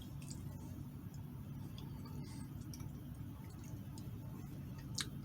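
Quiet room tone with a steady low hum and a few faint clicks, with a sharper click about five seconds in.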